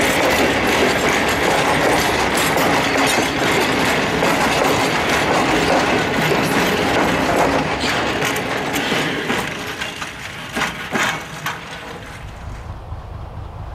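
Loaded cement hopper wagons rolling past close by, their wheels clattering and rumbling over the track. A few sharp clanks come as the end of the train goes by, and the noise fades about ten seconds in, leaving only a low rumble.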